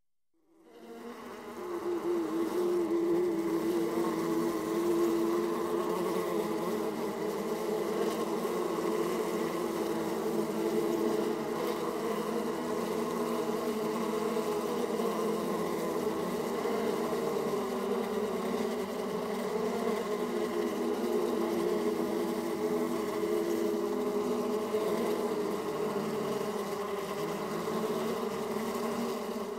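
A swarm of bees buzzing steadily in a dense, droning hum that fades in over the first two seconds and holds at an even level.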